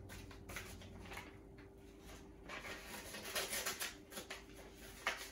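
A letter opener slitting open a paper envelope: faint scratchy paper rustling and crackling, busier a little past the middle, with a sharp click near the end.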